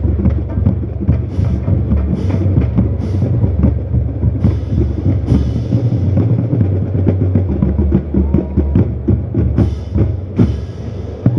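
Marching band drumline playing loudly: bass drums and snares, with bright crashes now and then.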